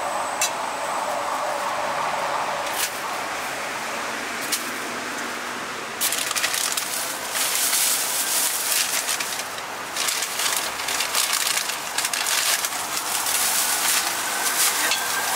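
Thin black plastic carrier bag crinkling and rustling as it is opened and handled, starting about six seconds in, over a steady background hum with a few light clicks.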